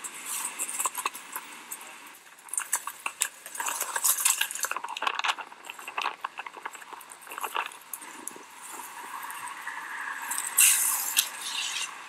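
Skateboard rolling over rough street pavement: wheels and trucks rattling, with irregular clicks and clacks and a harsher scrape near the end.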